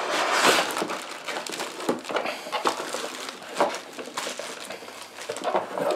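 Plastic wrap crinkling and moulded pulp packing inserts rubbing and knocking against a cardboard box as a heavy UPS is unpacked. A continuous rustle with a few sharper knocks.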